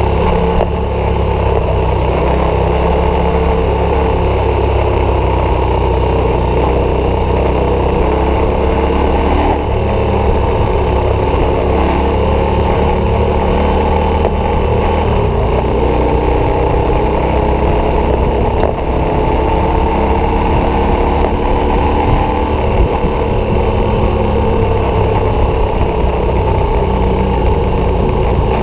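KTM 1190 Adventure's V-twin engine through a Wings aftermarket exhaust, running under steady throttle at road speed, with the revs drifting gently up and down.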